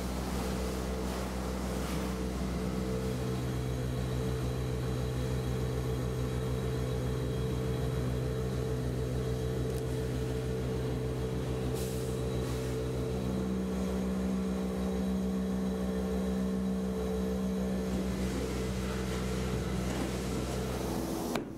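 An engine-driven sludge pump running steadily as it draws sludge out of the tank through a suction hose: a constant mechanical hum whose note shifts a couple of times.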